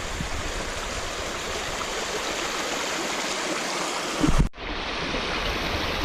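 Rain-swollen small creek and waterfall rushing steadily. About four seconds in there is a brief low thump, the loudest moment, and the sound cuts out for an instant.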